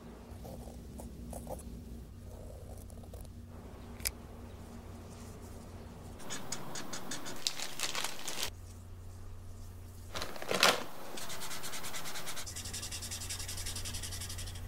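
Rubbing and scratching strokes in several separate stretches, quick and evenly repeated, after a quieter start broken by one sharp click, over a faint low hum.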